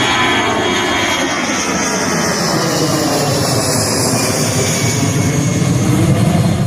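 Jet airliner's engines running loud and steady as the aircraft passes close by, with faint tones sliding in pitch through the noise.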